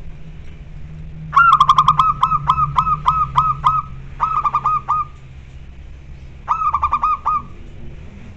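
Zebra dove (perkutut) calling: three bursts of quick, clipped cooing notes, about four a second. The first and longest burst begins a little over a second in, and two shorter ones follow.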